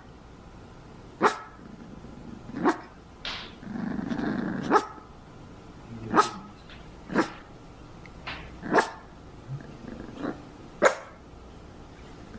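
Cavalier King Charles spaniel puppy giving short, sharp barks, about seven loud ones at irregular intervals with a few softer ones between, and a low growl about four seconds in.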